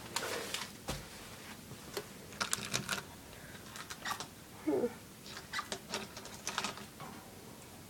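Scattered light clicks and taps in small clusters, typical of a Pionus parrot climbing around its cage with beak and claws on the bars. A brief soft pitched sound comes about halfway through.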